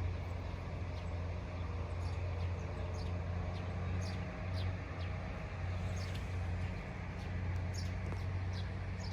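Birds chirping: short, high, falling chirps scattered throughout, over a steady low rumble.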